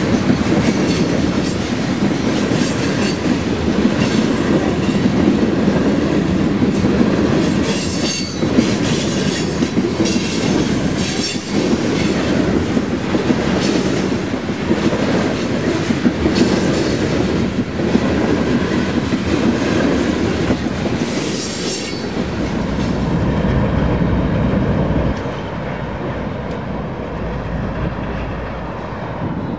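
Covered hopper cars of a BNSF grain train rolling past, the wheels clacking over rail joints with high-pitched wheel squeal at times. About 22 seconds in, a deep diesel rumble takes over as the train's trailing locomotives pass.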